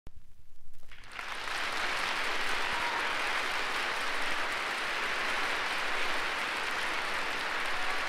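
Audience applause from a large crowd on a live concert recording played from a vinyl record, swelling in about a second in and then holding steady.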